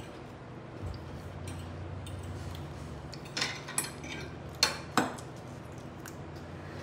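Metal forks clinking and scraping on plates while eating, with a few sharp clinks in the second half.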